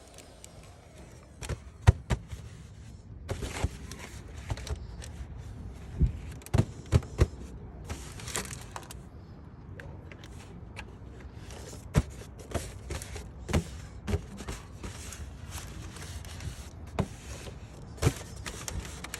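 Balloons being handled, giving irregular clicks, knocks and rubbing, with a few sharper, louder snaps about two, six and twelve seconds in.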